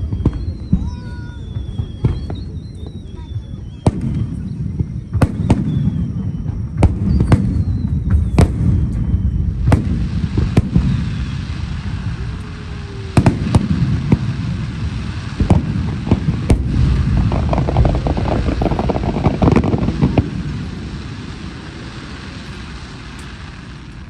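Aerial fireworks bursting: a run of sharp bangs over a heavy low rumble, with a few thin falling tones among the first bursts. About seventeen seconds in, a dense crackling burst rises, then the booms die away over the last few seconds.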